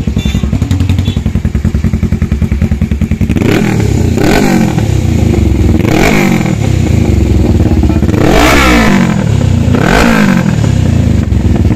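Suzuki GS500's parallel-twin engine idling, then revved in four short blips, each rising and falling back to idle, with the third held longest. The sound comes through an aftermarket exhaust silencer held in place by hand, not yet fitted.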